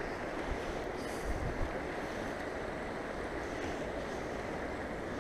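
Steady rush of flowing river water over rocks, with some wind on the microphone.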